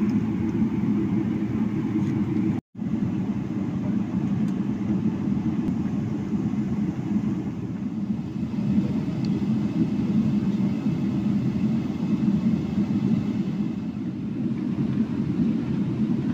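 Steady low rumble in the cabin of a Boeing 737 taxiing after landing. It drops out completely for a split second about two and a half seconds in.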